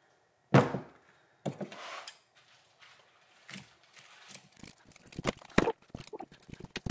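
A heavy frozen water balloon set down on a table with a thunk, followed by a softer knock about a second later. From about halfway on, scissors snip and cut through the rubber balloon, with a run of short sharp clicks.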